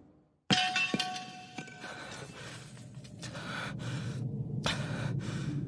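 A sudden ringing hit about half a second in, with a few high tones that fade. From about three seconds comes heavy, ragged gasping for breath from the defeated, wounded man.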